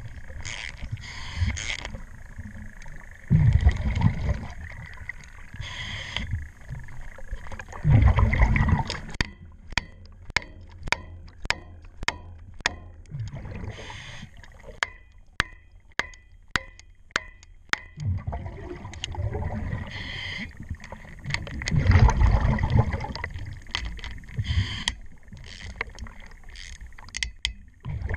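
Scuba diver's regulator breathing underwater: hissing inhales and gurgling bubble bursts from exhales every few seconds. Through the middle comes a run of sharp clicks, about two a second, from a tool working on a zinc collar anode on the propeller shaft.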